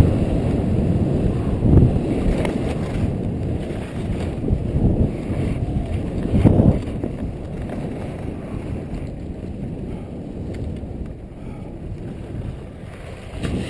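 Wind rumbling on the microphone and skis hissing over snow during a downhill ski run, with a few louder gusts early on and the noise easing off gradually toward the end.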